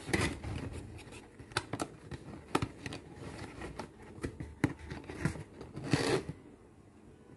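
A glass tea set and its packaging being handled: a string of light clicks and knocks, with a short rustle of packaging about six seconds in.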